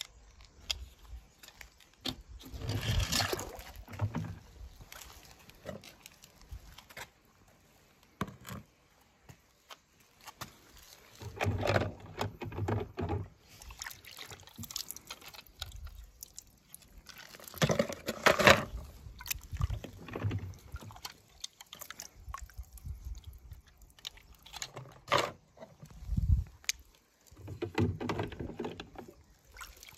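Water sloshing and splashing in several short, irregular bouts as small die-cast toy cars are moved about in it, with a single low thump near the end.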